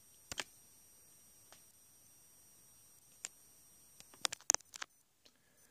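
A few short, sharp clicks in a quiet room: one about a third of a second in, faint single ticks later, then a quick run of clicks near the end.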